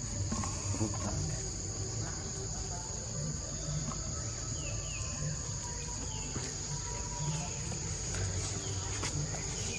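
Insects giving a steady high-pitched buzz, with a low uneven rumble underneath and a few faint short falling chirps partway through.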